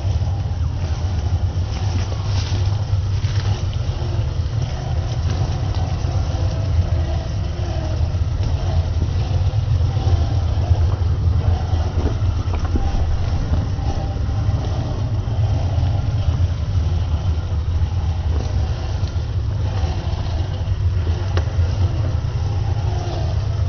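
Traxxas TRX-4 RC crawler's electric motor and geared drivetrain running, a steady low drone with a wavering higher whine over it.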